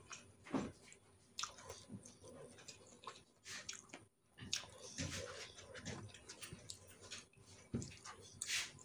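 A person chewing and biting food, with irregular soft mouth clicks and smacks.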